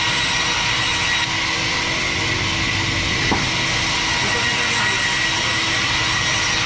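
Sawmill bandsaw running steadily: a constant loud machine noise with a steady high whine, and one short knock just past the middle.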